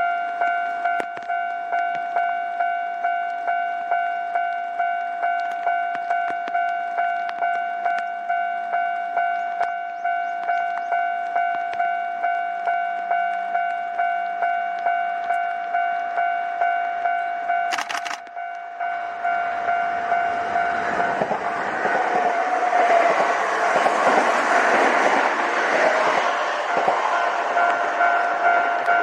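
Japanese level-crossing alarm ringing its steady, evenly repeating electronic bell tone. About nineteen seconds in, a Kintetsu Osaka Line train starts passing over the crossing, and its running noise builds over the bell and is loudest near the end.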